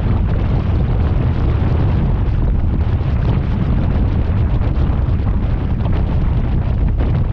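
A power catamaran running at speed: a steady, loud low rumble of wind buffeting the microphone over the churning wake and the drone of its outboard engines.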